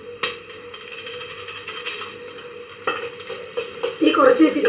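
Metal spatula stirring and scraping chopped vegetables around a metal kadai, with light sizzling from the frying. There are a few sharp knocks of the spatula on the pan, and the scraping grows louder near the end.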